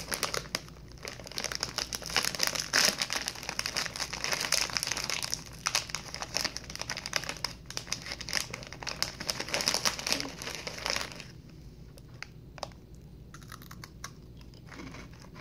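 A plastic snack bag of Russisch Brot biscuits crinkles and rustles as it is handled and tugged open. The crinkling stops about eleven seconds in, leaving a few soft clicks.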